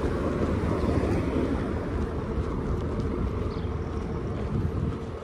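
Steady low rumble of street traffic, with wind on the microphone.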